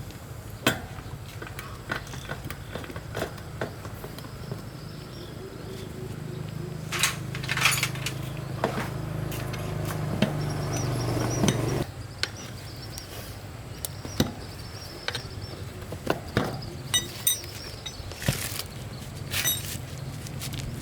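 Metal tools clinking and knocking on metal parts during repair work, over a steady low hum that grows louder and stops suddenly about twelve seconds in.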